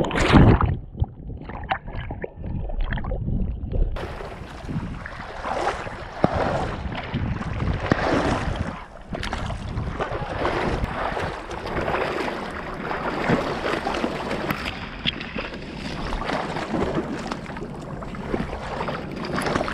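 Water splashing and sloshing close to the microphone as a dog swims, with reeds brushing past, heard from a camera harnessed to the dog's back. It sounds duller for the first few seconds, then clearer, with a constant busy wash of splashes.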